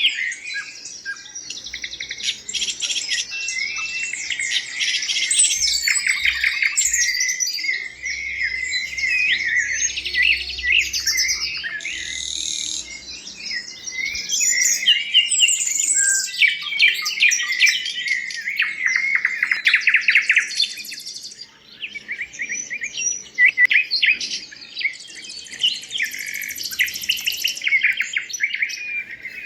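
A flock of exotic birds chirping and calling together, many overlapping high chirps without a break.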